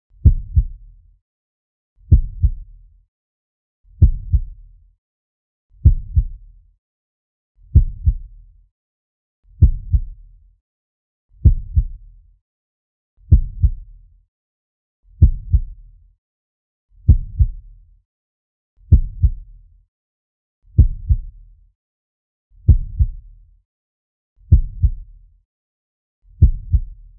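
Slow heartbeat sound effect: deep lub-dub double thumps, one beat about every two seconds, in a steady even rhythm.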